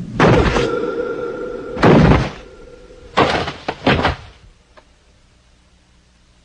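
Animation sound effects of a body crashing onto rocky ground: about four heavy thuds over four seconds, the loudest about two seconds in, with a ringing tone held under the first three. After that the sound falls to a low hush.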